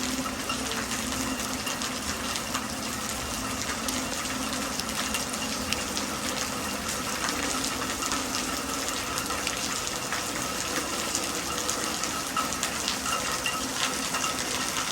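Soft rain falling steadily, a continuous hiss with many small drop ticks scattered through it, over a faint steady low hum.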